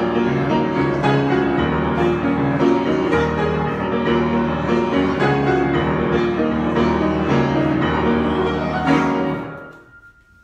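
Grand piano played solo in an improvisation, ending with a last chord struck about nine seconds in that rings out and fades away.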